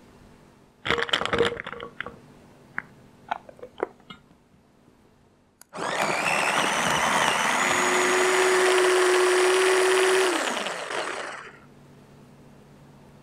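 Garlic slices clatter into the plastic bowl of a mini electric garlic chopper, followed by a few light clicks. Then the chopper's small motor runs with a steady whine for about five seconds, mincing the garlic, and winds down with a falling pitch.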